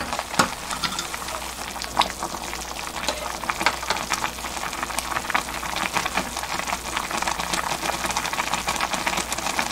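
Pot of water at a rolling boil, blanching perilla leaf shoots: steady bubbling and crackling pops, with a few sharper pops now and then.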